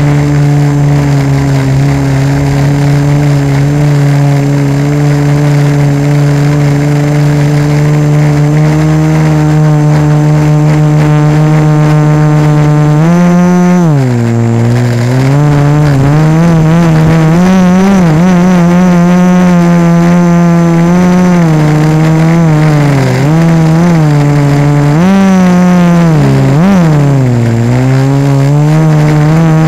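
Quadcopter's four A2212 1000Kv brushless motors spinning 1045 propellers, heard through the camera bolted straight to the frame. The buzz holds a steady pitch for about the first half, then dips and rises again several times as the throttle changes.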